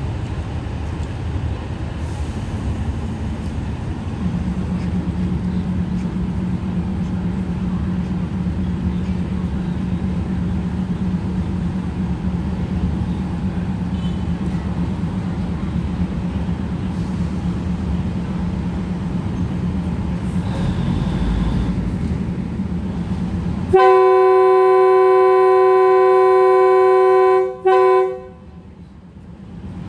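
Diesel railcar engine idling with a steady low hum, then a train horn sounds one long blast of about four seconds followed by a short toot.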